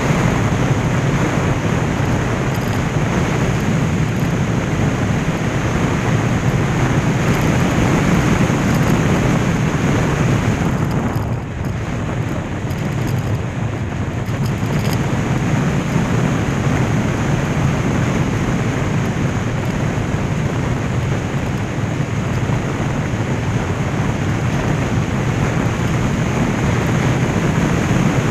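Wind buffeting the microphone of a motorcycle-mounted camera at road speed, over the steady low drone of the motorcycle and its tyres. The wind noise eases for a few seconds about eleven seconds in, then picks up again.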